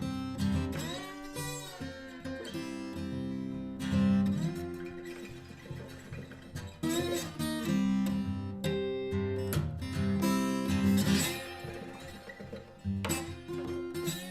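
Instrumental background music led by acoustic guitar.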